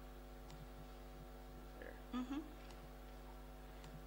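Steady electrical mains hum from the sound system, with a brief faint voice about two seconds in.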